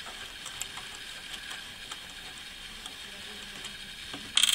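Faint small clicks of a metal nut being turned by hand off a potentiometer's threaded bushing, over a steady hiss, then a short sharp clatter near the end.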